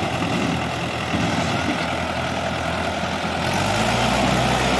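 Mahindra tractor's diesel engine running hard under heavy load as it hauls a loaded trolley uphill, with its front wheels lifting off the ground. The engine note gets louder about three and a half seconds in.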